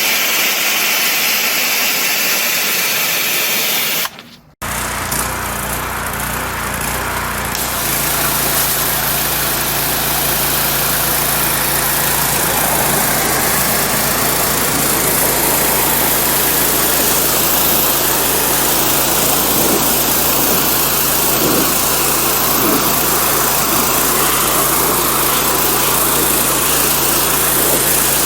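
Pressure washer at work: high-pressure water spray hissing. After a short break about four seconds in, the steady hum of the pressure washer's engine runs under the hiss of the spray.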